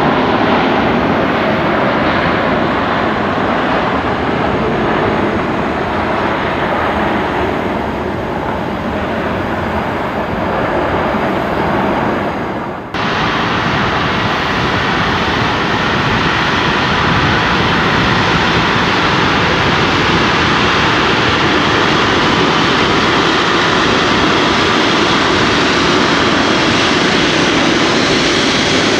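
Boeing 777-300 airliner's Rolls-Royce Trent 892 jet engines running. First the jet noise of the rollout after touchdown eases a little. After an abrupt cut about 13 seconds in there is a steady jet-engine noise at taxi power.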